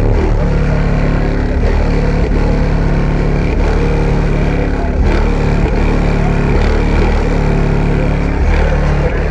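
Loud, bass-heavy music played through a car audio system's subwoofers, with deep low notes that change about once a second.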